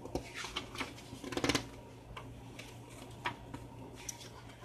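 Pages of a book being turned by hand: a series of soft paper flicks and rustles, most crowded about a second and a half in.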